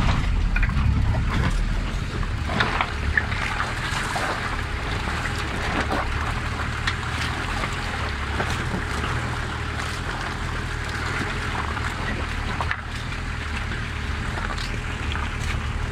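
Nissan Patrol engine running steadily at low revs, heard from inside the cabin, with scattered knocks and rattles as the 4x4 crawls over rough, stony ground.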